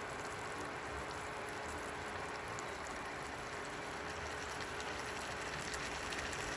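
A pot of tilapia stew simmering on an induction stove: a steady bubbling hiss with faint small pops, and a faint steady hum underneath.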